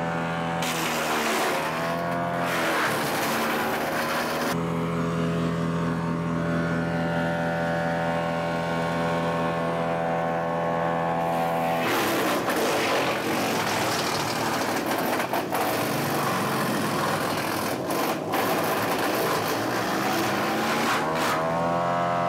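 Big Bear BBC72 wood chipper's gas engine running at full throttle, its pitch sagging briefly as a branch is fed in. From about halfway the knives chip the wood with a long, harsh grinding noise over the engine, and the engine pitch climbs back up near the end.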